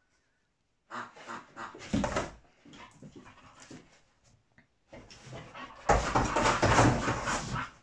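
English bull terrier attacking a cardboard box, scuffling and scraping the cardboard with its nose and paws amid its own close dog noises. It starts about a second in, and the loudest stretch, with thuds, comes about six seconds in as the dog jumps at the box with its front paws.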